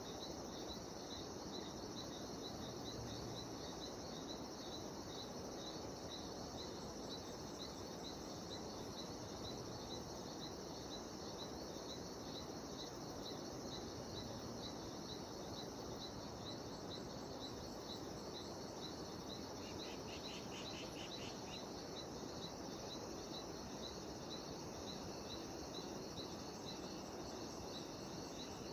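Cicadas calling in a steady, high, rhythmic chorus, pulsing a few times a second over a constant background hiss. About two-thirds of the way through, a brief faster trill sounds at a lower pitch.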